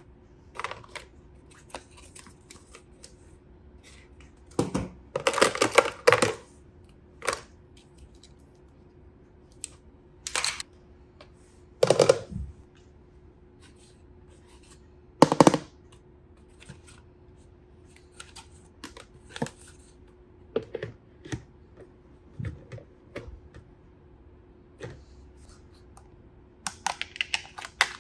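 Small plastic objects and packaging being handled during an unboxing: scattered clicks and taps, with a few short crinkling bursts, over a faint steady hum.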